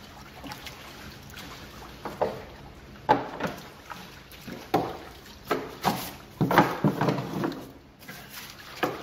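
A sponge scrubbing the floor of an empty jet ski hull through a shallow layer of water: irregular wet swishes and splashes, most closely bunched about six to seven seconds in.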